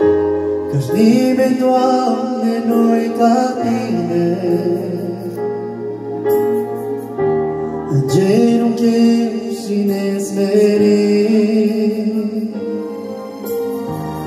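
A man singing a Romanian Christian worship song into a microphone over an accompaniment of sustained bass notes, with a short break in the voice a little past halfway.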